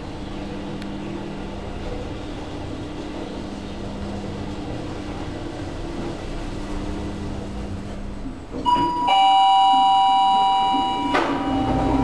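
Schindler machine-room-less elevator car riding up with a steady low hum, then about nine seconds in a loud two-tone arrival chime rings, a higher note falling to a lower one and ringing for about two seconds. Near the end a click and a rumble come as the car doors open.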